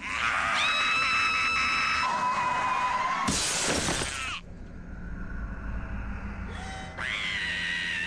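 A high, sustained shriek lasting about three seconds, then a loud crash with shattering glass a little over three seconds in, followed by a low rumble. Another high shriek rises near the end: the sounds of a car accident.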